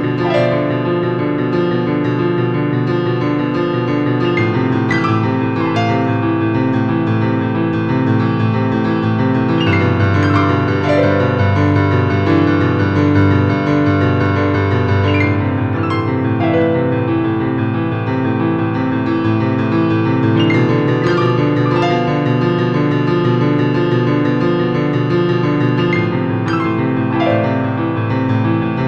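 Background piano music: slow, sustained chords, with new notes struck every few seconds.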